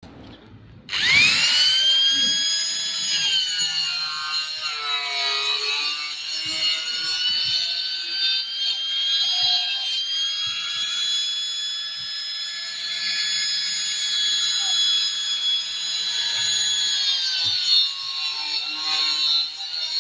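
Handheld electric power tool starting up about a second in with a rising whine, then running at a steady high whine whose pitch dips now and then as it bites into the work.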